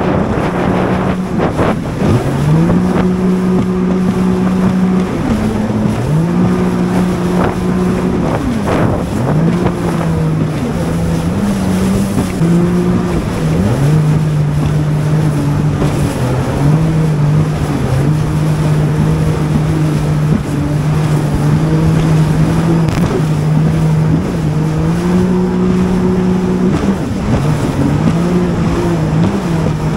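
Jet ski engine running under way, its pitch dropping and climbing back several times as the throttle is eased and opened again, with wind on the microphone.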